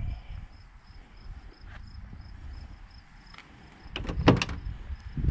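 Car door handle and latch of a 1971 Corvette clicking as the driver's door is unlatched: a quick cluster of sharp clicks and a clack about four seconds in, over a low rumble and a faint high chirp repeating about four times a second.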